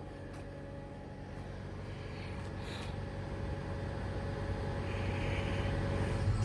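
A vehicle engine running with a steady low hum, growing gradually louder.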